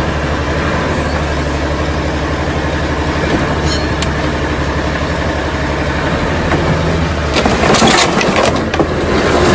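A van's engine idling steadily. Near the end the hum gives way to loud cracking and crunching as the van's door handle, levered by a bar wedged through it, is wrenched and bent out of the door.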